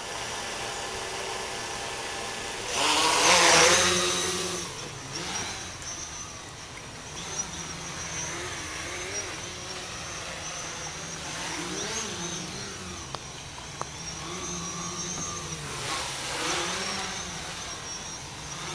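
MikroKopter quadcopter's electric motors and propellers running: a steady buzz that swells loudly about three seconds in as it lifts off, then a hovering drone whose pitch wavers up and down as the motors adjust.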